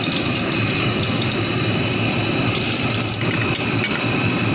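Battered banana fritter deep-frying in a wok of hot oil, the oil sizzling steadily.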